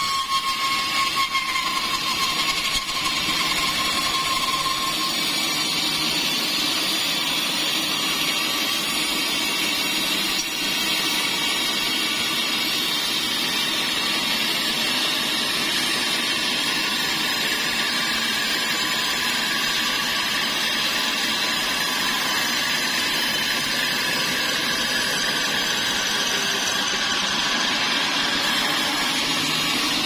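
Band sawmill running, its blade sawing lengthwise through a large pine log: a steady, even mechanical noise.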